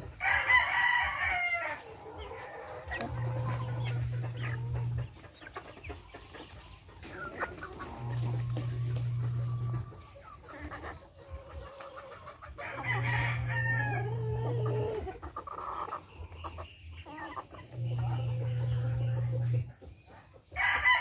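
A flock of heritage chickens clucking as they feed, with a rooster crowing near the start, again about two-thirds through, and at the end. Under them a low steady hum switches on for about two seconds roughly every five seconds.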